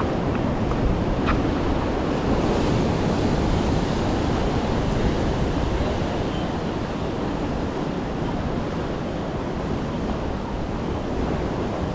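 Ocean surf breaking and foaming against reef rocks in a steady wash, with wind buffeting the microphone.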